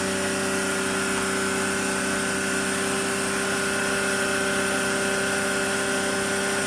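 Suzuki F6A three-cylinder multicab engine running at a steady, raised idle. The mechanic blames its wandering, high idle on a torn, holed diaphragm.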